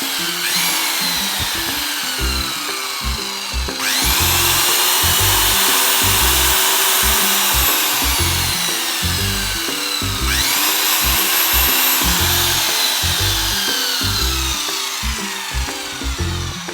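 An electric power tool's motor spun up three times, each a quick rising whine that then slowly falls in pitch, as the tool is tested to see whether it still runs. Background music with a steady beat plays underneath.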